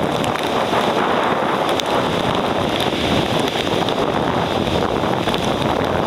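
Typhoon wind blowing hard across the microphone, a steady loud rush of wind noise with storm surf breaking on the shingle beach underneath.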